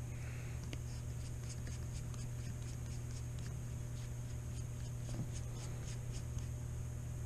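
Faint scratching and small irregular ticks of a hand tool working a small screw on an RC truck, over a steady low electrical hum.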